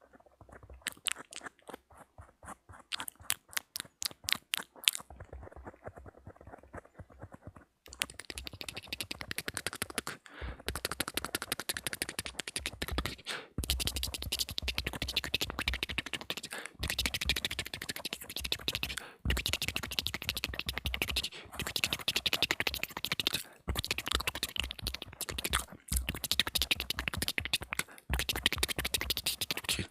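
ASMR mouth sounds made close to the microphone: a run of separate wet clicks, then from about eight seconds in, fast continuous clicking and crackling in stretches of two or three seconds with short breaks between them.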